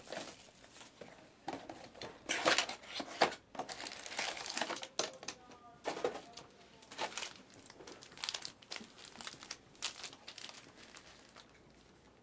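Clear plastic shrink wrap and foil trading-card packs crinkling as they are unwrapped and handled, in irregular bursts that grow fainter near the end.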